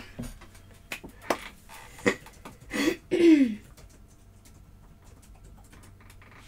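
A few light clicks and knocks, then two short wordless vocal sounds about three seconds in, each falling in pitch; quiet room tone after that.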